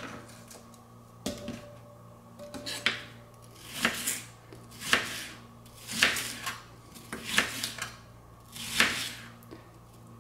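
Chef's knife slicing a sweet onion into slivers on a cutting board: slow, separate cuts about once a second, each a short slicing hiss ending in a knock as the blade meets the board.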